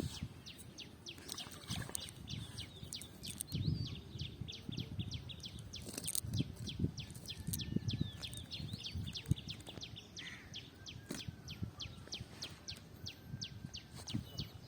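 Rapid, evenly repeated high chirps, about four a second, keep going throughout, with scattered low thumps and rustling underneath.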